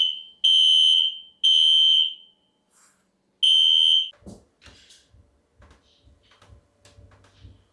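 Building fire alarm beeping on one loud, high tone. Two long beeps, a pause of over a second, then one more beep about three and a half seconds in, after which it stops. This is the building's alarm that goes off nonstop. Faint knocks and handling noises follow.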